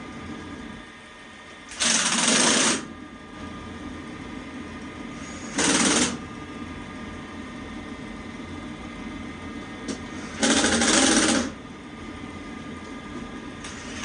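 Power driver with a 5/16 nut-driver bit spinning sheet-metal screws into a furnace panel in four short runs, each half a second to a second long.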